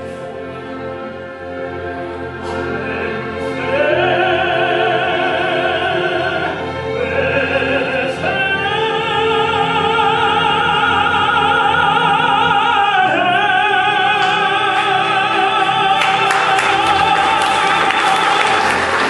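A man singing in operatic style with strong vibrato over instrumental accompaniment. His line climbs in steps to one long high note held near the end: the closing climax of an aria.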